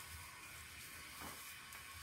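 Faint strokes of a paintbrush dabbing paint onto a metal pipe, one soft swish about a second in, over a steady low hiss.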